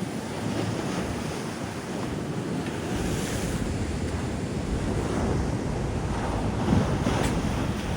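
Ocean waves and surf rushing, with wind buffeting the microphone.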